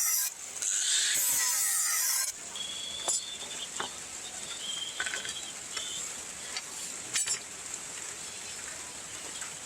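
Loud abrasive scraping of steel as a rebar knife blank is shaped, breaking off briefly at the start and stopping about two seconds in; after that only a few light clicks and taps.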